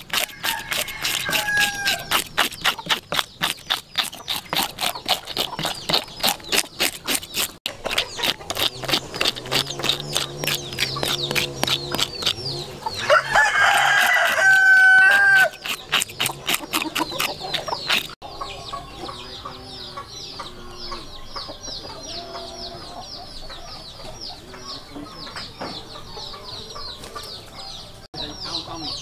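Fish scales being scraped off a whole fish in rapid, repeated strokes, several a second, which stop abruptly about 18 seconds in. A rooster crows loudly around 13 seconds in, and chickens cluck in the quieter stretch afterwards.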